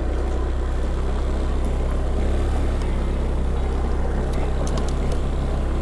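Honda scooter ridden along a rough dirt track: a steady low engine and road rumble under a constant hiss of wind and road noise.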